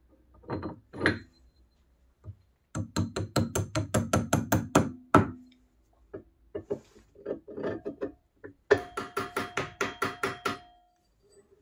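Two runs of quick hammer taps, about five a second, on a metal drift, driving a stepped aluminium pulley onto an electric motor's shaft. The later run rings with a steady metallic tone.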